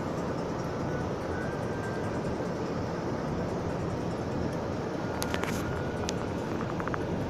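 Steady road and wind noise of a car driving through a snowstorm, with a few light clicks a little past halfway.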